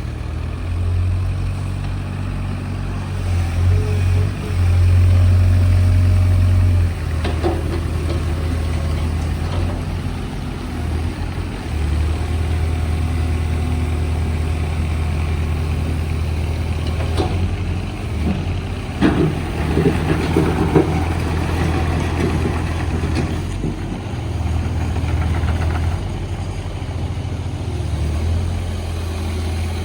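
The 4-cylinder JCB diesel engine of a JCB 48Z-1 mini excavator running, its low drone rising and falling in steps several times as it is worked. A few knocks come through, one about seven seconds in and a cluster near twenty seconds.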